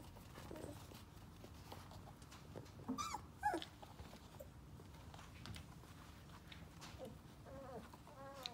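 Four-week-old sheepadoodle puppies at play, giving a few short, high yelps and whines. The loudest two come about three seconds in and more come near the end.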